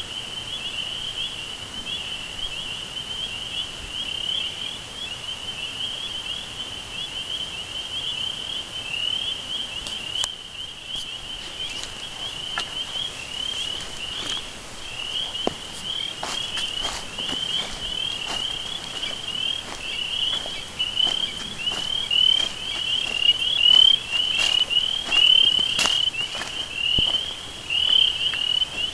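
A continuous high-pitched chirring chorus of insects, pulsing rapidly without a break. Scattered sharp clicks and crackles join it about twelve seconds in and grow more frequent and louder towards the end.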